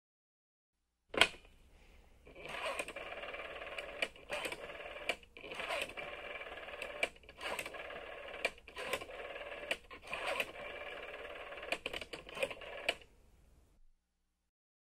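Telephone number being dialed, as a sound effect: a sharp click about a second in, then a steady dial tone broken by a dozen or so clicks and short gaps as the digits go in, stopping near the end.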